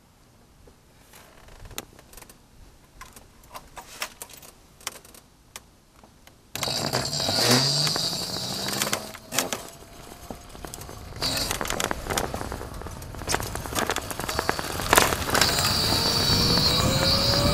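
Scattered light clicks and rattles of the electric bike being handled. Then, about six seconds in, the e-bike's electric drive comes on: a high-pitched whine with a motor tone that rises in pitch as the bike pulls away and gathers speed, over road noise.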